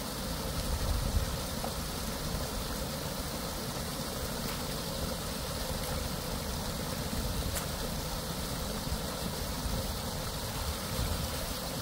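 Water gushing from a hose pipe outlet and splashing into a stream pool: a steady rushing sound.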